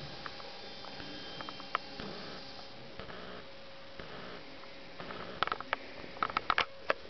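Faint steady electrical hum with a few scattered light clicks, then a quick run of sharp clicks and taps about five to seven seconds in.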